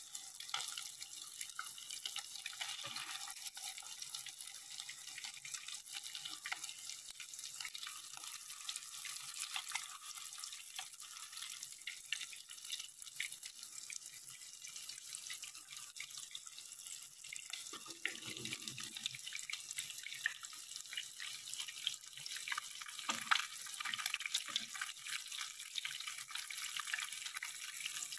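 Flour-coated eggplant rolls frying in hot oil: a steady sizzle full of fine crackling and popping.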